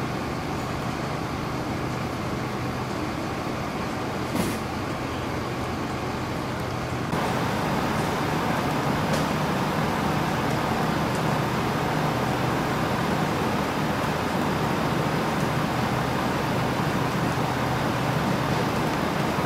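A vehicle engine idling steadily under a constant hiss of noise, with a single click a little past four seconds in. The sound steps up louder at a cut about seven seconds in.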